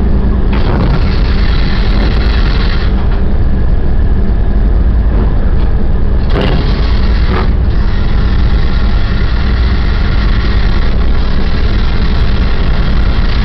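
Ship's engine and deck machinery running with a steady, loud low rumble. Two short knocks come about a second apart a little past the middle.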